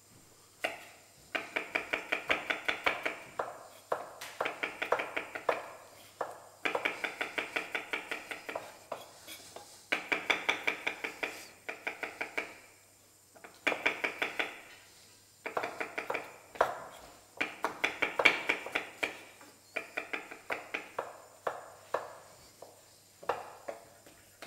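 Chef's knife chopping garlic cloves on a wooden cutting board: quick runs of sharp knocks, about five a second, broken by short pauses.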